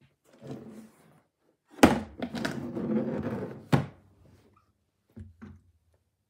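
Hard plastic tool carry case shut and shoved across a concrete floor: a loud thunk, about two seconds of scraping, then a second knock, followed by a couple of light clicks.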